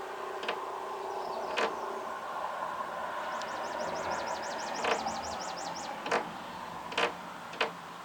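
A small yellow bird pecking at window glass: six sharp, irregularly spaced taps. In the middle comes a fast trill of high chirps, about six a second, for a little over two seconds.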